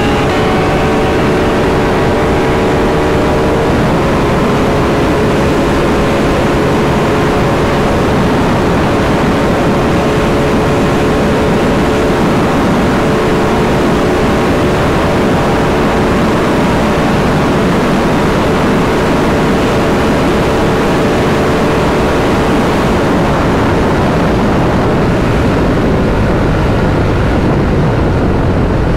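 Heavy wind noise buffeting the microphone of a Ducati Monster 797 at full speed, around 200 km/h, with the bike's V-twin engine holding a steady high note underneath. The engine note is clearest for the first few seconds and then sinks under the wind.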